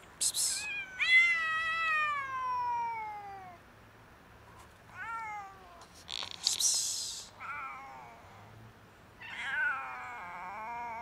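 Tabby cat meowing four times, the first call long and falling in pitch, the last one wavering. Two short bursts of hissy noise come near the start and about six seconds in.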